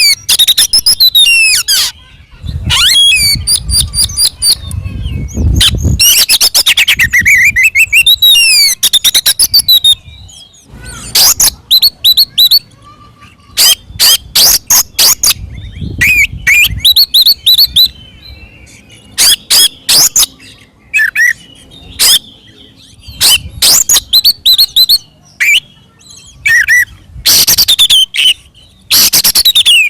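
Oriental magpie-robin (kacer) singing loudly in an aggressive, fighting mood. For about the first ten seconds it gives a dense run of gliding whistles and fast trills. After that come repeated bursts of rapid harsh rattling and chattering notes with short pauses between them.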